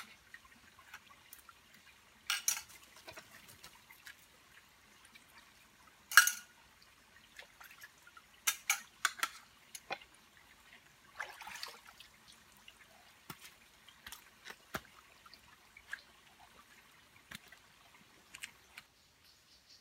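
Metal camping mug and pot being rinsed in a shallow stream: short splashes and pours of water with light clinks of metal cookware. About five separate splashes come in the first twelve seconds, the sharpest about six seconds in, then only a few faint ticks.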